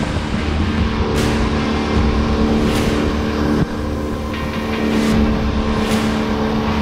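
Small outboard motor running steadily at speed, pushing the boat up the river. A few short bursts of hiss come every second or two.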